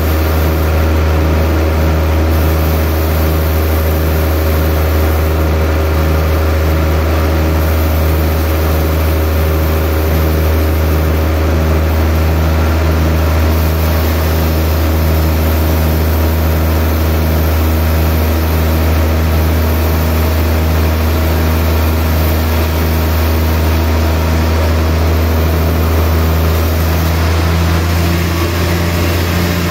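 A large vertical band saw runs steadily as a big log on its carriage is fed through the blade. It makes a loud, constant low hum with a regular pulsing beat. The sound shifts near the end as the cut nears the end of the log.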